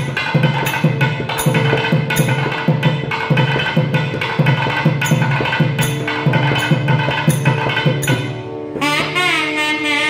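Thavil drum playing a steady rhythmic passage, about two strokes a second with sharp rim-like cracks, over a constant drone. Near the end a nadaswaram comes in with a wavering, gliding melodic phrase in raga Madhuvanti.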